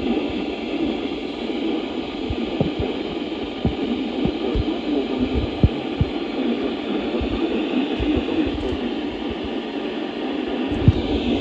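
Steady hiss and hum of static with scattered low thumps, two of them louder, about midway and near the end.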